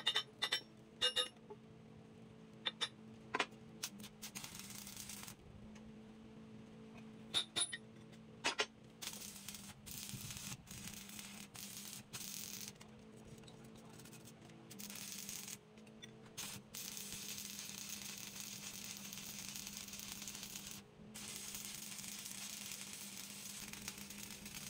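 A few sharp metal clicks in the first seconds, then an electric arc welder crackling and hissing in long stretches as steel is welded at a pipe shaft's flange, with short breaks where the arc stops and is struck again. A steady low hum runs underneath.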